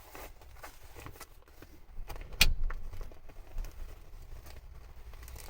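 Handling noises as a seat cover is worked onto a truck seat: scrapes and light clicks, with one sharp knock about two and a half seconds in.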